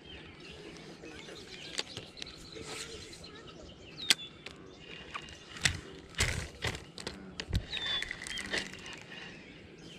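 A spinning reel and rod being handled close to the microphone give scattered clicks and a cluster of louder knocks about six to seven seconds in. A bird chirps a few short falling notes, the sharpest about four seconds in.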